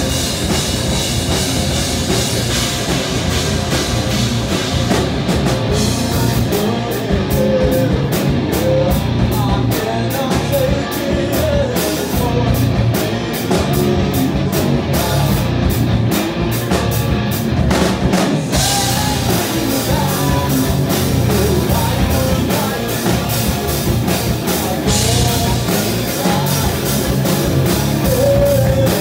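Live heavy rock band playing loud: distorted electric guitars, bass guitar and a drum kit, with a singer's vocals. A choppy, stop-start stretch runs through the middle.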